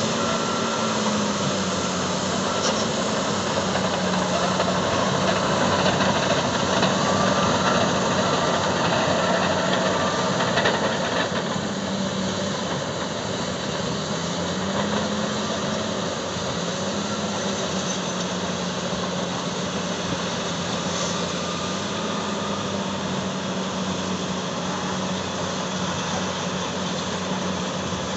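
Heavy Caterpillar diesel earthmovers working under load: D10N crawler dozers push-loading a 651E wheel tractor-scraper. The engine note rises and falls several times as the machines take up and ease off the load.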